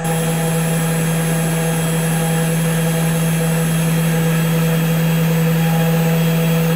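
SainSmart 3018 desktop CNC mill's spindle running at a steady pitch, a hum with a high hiss over it, as a V-bit cuts traces into a copper-clad PCB blank.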